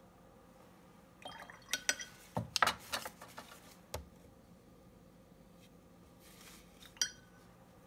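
Watercolour brush being rinsed in a glass water jar: a cluster of clinks and knocks with a little splashing from about one to four seconds in, and one more click near the end.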